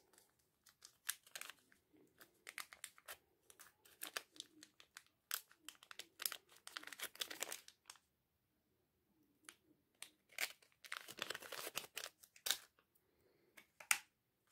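Crinkling and rustling of small plastic packaging and craft supplies being handled, in clusters of short crackles with a pause of about a second and a half midway.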